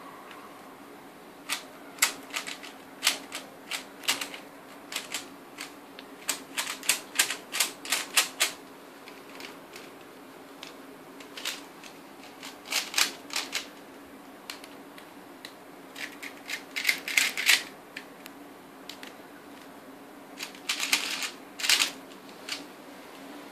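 Plastic 3x3 speed cube turned rapidly by hand, its layers clicking in quick runs of one to three seconds, each run one OLL algorithm being executed, with short pauses between runs. A steady low hum lies underneath.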